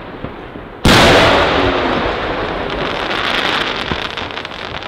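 Aerial firework shell bursting with one sudden loud bang about a second in, followed by a long fading rumble. From about halfway on, many small sharp crackling pops from the falling stars.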